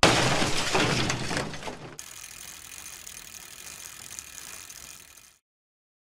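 Rapid ratcheting clicks of a bicycle freehub as a rear wheel spins and coasts. They are loud for about two seconds, then die away to a faint hiss and stop about five seconds in.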